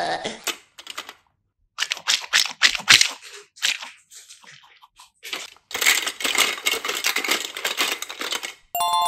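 Hollow clear plastic capsules and small plastic toys clattering and clicking as a hand rummages through a bin of them, with a short ringing tone near the end.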